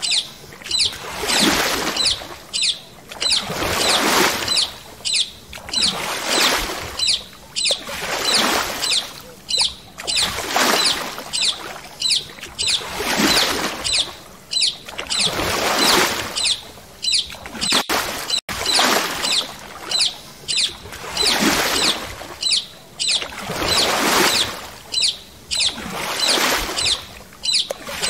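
Water swishing in regular surges, about one every two and a half seconds.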